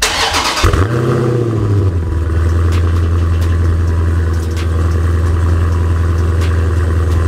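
2021 Dodge Challenger Scat Pack's 6.4-litre HEMI V8 starting up through its exhaust, flaring in revs about a second in, then settling into a steady, deep idle.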